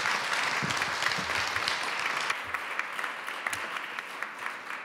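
Audience applauding: dense clapping that thins out and fades toward the end.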